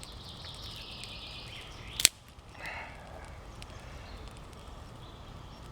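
Firewood being stacked on a campfire: a faint rustling hiss, then a single sharp crack about two seconds in, followed by a brief scrape.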